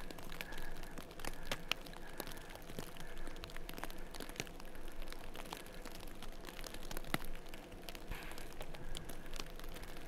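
Heavy snowfall: many scattered, irregular light ticks of falling snow over a soft steady hiss.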